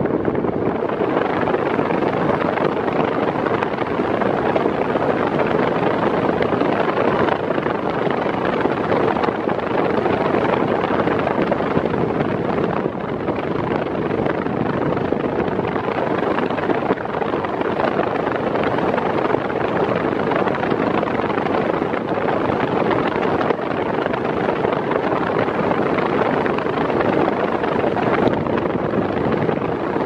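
Arno Silence Force table fan running at its top speed: a steady rush of blown air with a faint steady hum in it.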